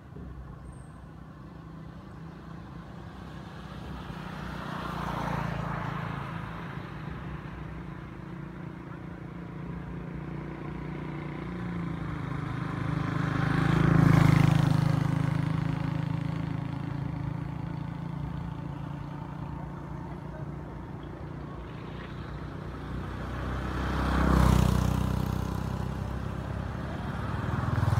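Motor vehicles driving past one after another, each engine sound swelling as it nears and fading away. The loudest pass comes about halfway through, and a sharper one follows near the end.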